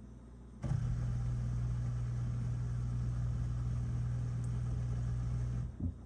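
A newly replaced dishwasher drain pump running and pumping out water: a steady low hum with a hiss over it that starts about a second in and cuts off shortly before the end. The pump is working and the dishwasher is draining.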